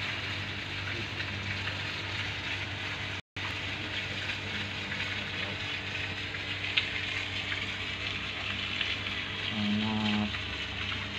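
Steady hiss over a low hum, with a short gap a few seconds in and a brief low pitched tone near the end.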